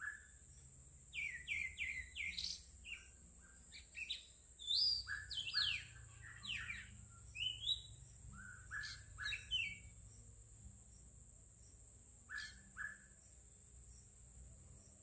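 Songbirds chirping and singing in clusters of quick downward-sliding whistled notes, over a steady high-pitched drone.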